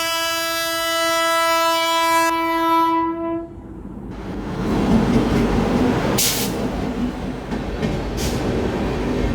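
Locomotive horn sounding one long steady blast that stops about three and a half seconds in, then the train passing over the crossing with the clatter of its wheels on the rails.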